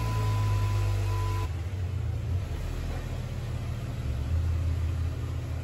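Jeep JK Wrangler's V6 engine running at low speed as the Jeep creeps forward, with a thin steady high tone that stops about a second and a half in.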